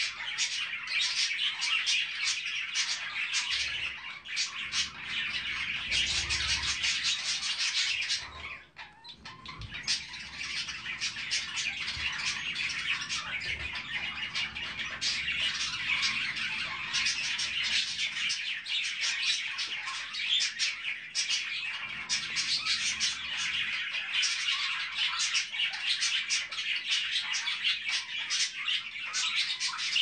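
Budgerigars chattering and chirping in a dense, continuous stream of rapid high chirps, with a brief lull about nine seconds in.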